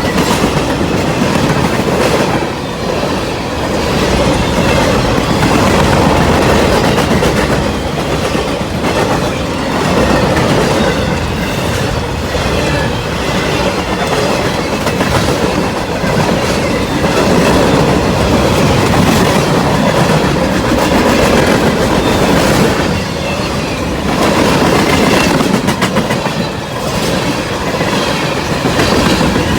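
Freight cars of a CSX manifest train rolling past, with a loud steady rumble and wheels clicking over the rail joints.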